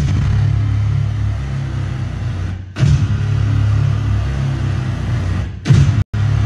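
Live industrial rock band playing a heavy, bass-heavy low rumble that crashes in suddenly. It breaks off briefly twice, each time coming back with a loud hit, and drops out for an instant near the end.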